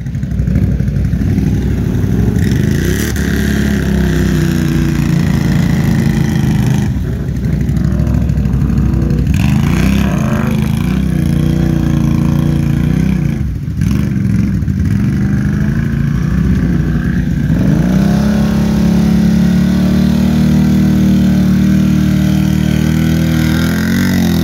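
ATV engines revving hard, rising and falling again and again, as the quads spin their tires through deep greasy clay mud, digging the hole out.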